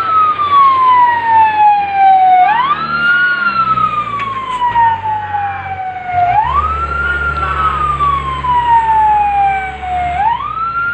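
Fire truck siren wailing: the pitch rises quickly and then falls slowly, repeating about every four seconds. A heavy engine's low rumble joins in for a few seconds past the middle.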